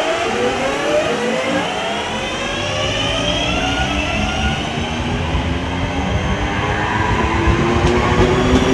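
Electric multiple unit pulling away, its traction motors whining in several tones that rise steadily in pitch as it gathers speed. The rumble of wheels on rail grows louder in the last few seconds.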